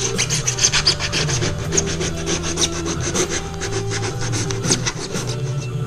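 Cured expanding spray foam being shaved and rasped down by hand inside a kayak's stern hatch: quick, irregular scraping strokes, many to the second.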